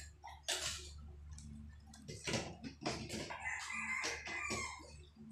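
Water splashing and dishes knocking against a metal basin as dishes are rinsed by hand. A rooster crows in the background about three to four seconds in.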